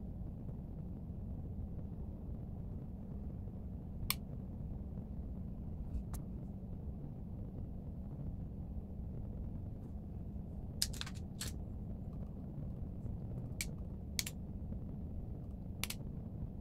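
Steady low hum of room noise, with about seven small, sharp clicks scattered through it from a make-up brush and a compact mirror being handled.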